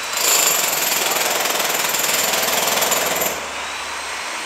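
Jackhammer breaking up a floor, rattling steadily and then dropping noticeably in level a little over three seconds in.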